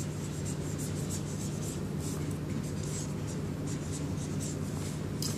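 Marker writing in short scratchy strokes as a name is written by hand, over a steady low hum.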